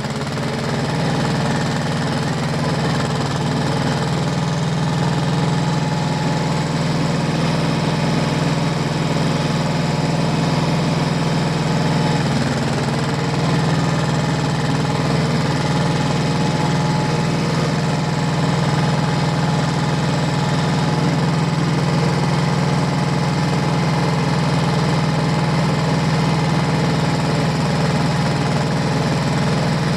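Diesel tractor engine running steadily under work, with a small shift in its note about twelve seconds in.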